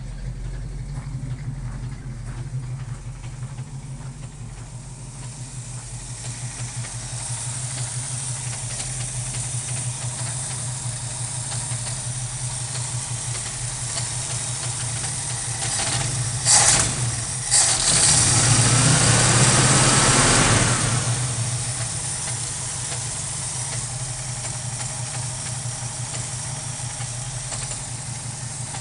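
Rebuilt Ford 302 V8 in a 1968 Mustang running roughly with a constant misfire, which the owner traced to a bad distributor cap. About two-thirds of the way through come two sharp sounds, and then the engine is briefly revved before it drops back to idle.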